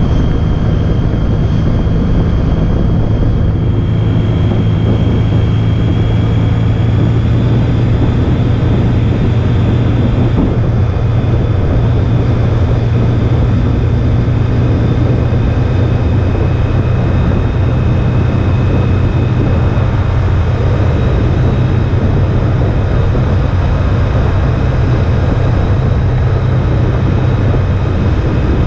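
Honda ST1300 Pan European's V4 engine running steadily at road speed, under a constant rush of wind and road noise.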